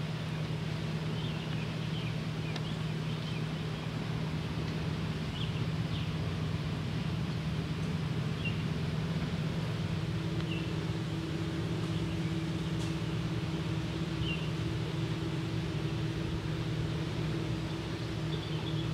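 A steady low drone of a running motor, with a second, higher hum joining about halfway through. Short high bird chirps come now and then over it.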